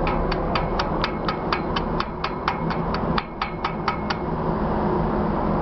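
Rapid, evenly spaced metallic tapping, about four strikes a second, that stops about four seconds in. Under it runs the steady low drone of the ship's engine and the wind.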